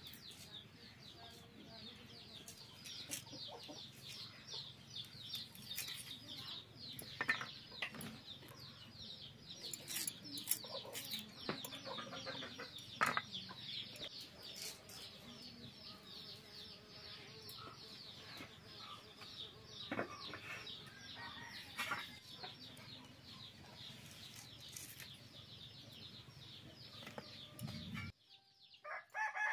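Chickens clucking and small birds chirping in a steady high chatter, with now and then a sharp tap or scrape of a small knife peeling a potato and cutting vegetables. The sound cuts off abruptly near the end.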